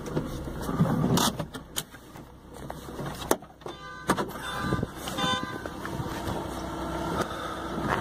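Inside a car: the engine runs with a steady low hum, with scattered clicks and knocks as the phone is handled and a couple of short pitched sounds near the middle.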